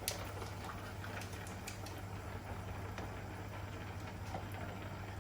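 Steady low hum with a few faint light clicks and taps, the loudest a sharp click right at the start.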